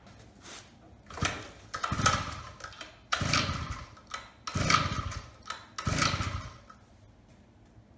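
About five hard pulls on the recoil starter of a small gasoline scooter engine. Each pull is a rasping whir as the engine cranks over, and the engine does not catch.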